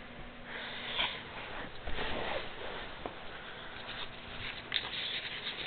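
A cat nosing at the camera and its string close to the microphone: breathy sniffing and rustling noises with a few soft knocks, strongest about half a second to two and a half seconds in and again near the end.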